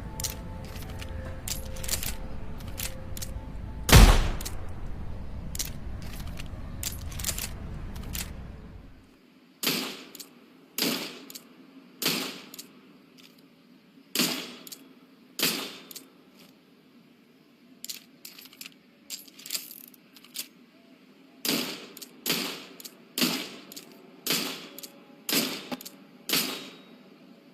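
A single gunshot from a Colt .38 snub-nose revolver about four seconds in, over a low rumble that stops near nine seconds. After that comes a run of sharp metallic clicks, about one every second or so.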